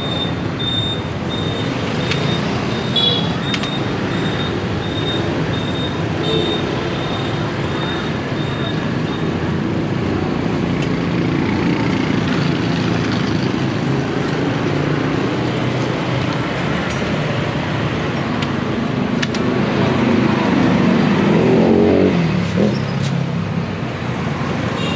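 Street traffic, mostly motorbikes and cars, running steadily, with one vehicle passing close around three-quarters of the way through, its engine note falling as it goes by. A high, evenly repeated pip sounds through the first several seconds.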